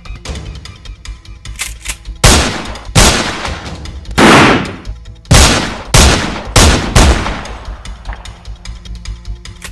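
Gunfire: seven loud gunshots in an uneven volley, starting about two seconds in, each with a short echoing tail. Background music plays underneath.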